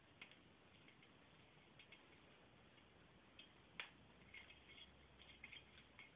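African grey parrot working at a paper-stuffed foraging ball with its beak: faint, irregular clicks and paper crinkles, coming more often in the second half, with one sharper click a little past the middle.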